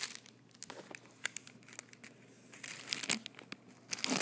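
Paper and tissue-paper wrapping being handled and crinkled while a small gift is unwrapped: scattered sharp crackles, a few louder ones about three seconds in, and denser crinkling starting near the end.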